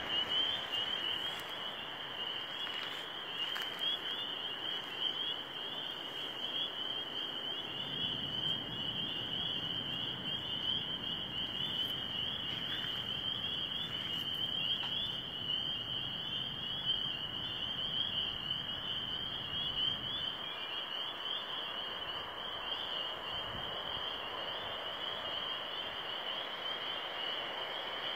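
A dense chorus of frogs calling steadily, a continuous high-pitched tone with a lower mix of calls beneath it.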